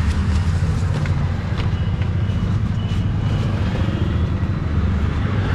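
Auto-rickshaw's small engine idling steadily with a low rumble, heard from inside the open cab.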